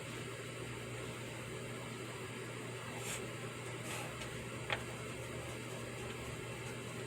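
Steady white-noise hiss with pencil sounds on paper: two brief soft scratches about three and four seconds in, then a single sharp tick.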